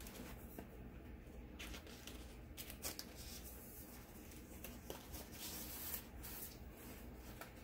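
Faint rustling and scattered light clicks of paper sticker sheets being handled and leafed through, busiest about five seconds in.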